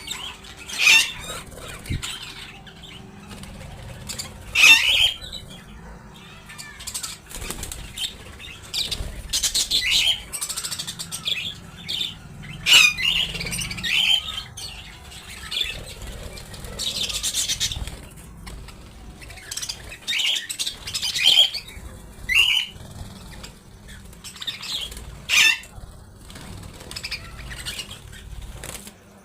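Budgerigars giving short, sharp chirps every second or two, mixed with bursts of wing flapping.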